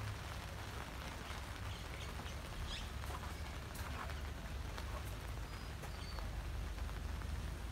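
Light rain falling, with scattered drops pattering as faint ticks over a low steady rumble.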